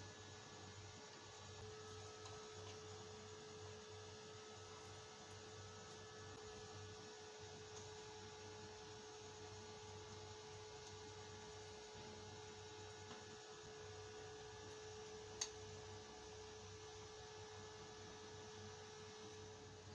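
Near silence: a faint steady electrical hum with a thin, even tone, and a single sharp click about three-quarters of the way through.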